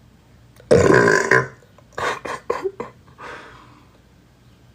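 A man belches loudly once, a deep burp lasting under a second, followed a second later by a few short, quieter sharp sounds.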